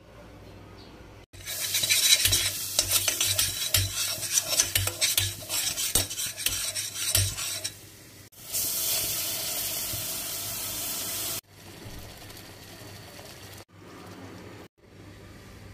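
Metal spoon stirring flour in sizzling fat in a stainless steel pot, making a roux: rapid scraping and clinking against the pot over a frying sizzle for several seconds, then a steady hissing sizzle for about three seconds. The sounds stop and start abruptly at edits, with quieter stirring near the end.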